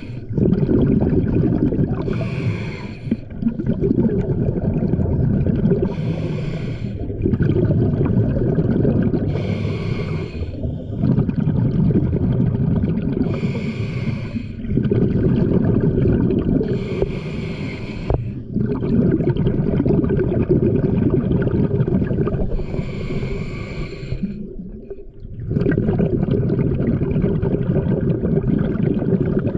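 Scuba diver breathing through a regulator underwater: a hissing inhale six times, each followed by a long, low bubbling rush of exhaled air.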